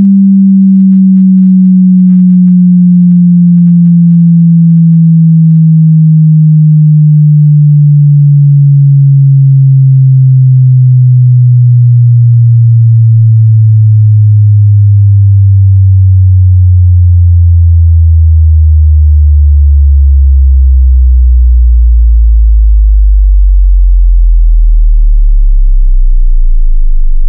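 Loud pure sine test tone for a headphone bass test, sliding slowly and steadily down in pitch from a low hum to a deep bass rumble near the bottom of hearing.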